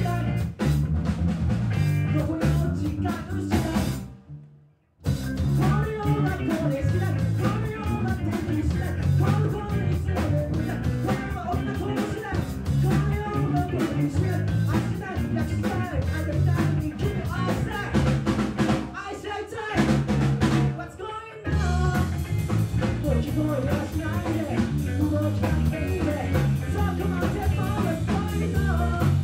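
Live rock band playing an upbeat song: electric bass, drum kit and a male vocalist singing. About four seconds in the whole band stops dead for under a second, then comes straight back in.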